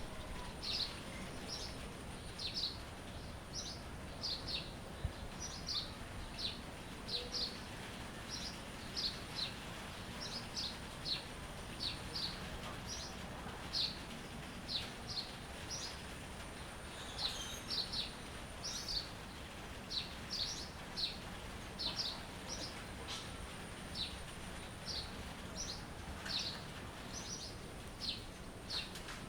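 Songbirds chirping: short, high, downward-sliding chirps repeating about once or twice a second, over a steady background hiss.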